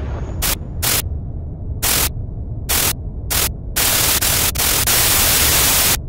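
Glitch sound effect: hard-edged bursts of white-noise static cutting in and out, several short ones and then a longer stretch of about two seconds, over a steady low hum.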